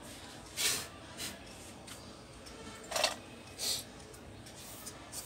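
Four short rubbing scrapes as gloved hands handle the opened LED TV's plastic backlight diffuser sheets.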